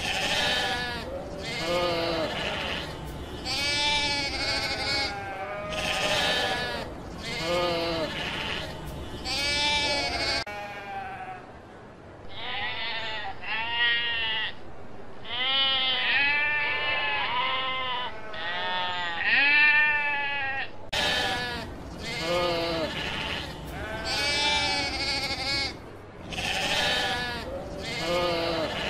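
Many sheep bleating, wavering calls overlapping one after another almost without pause. For about ten seconds in the middle the bleats sound duller.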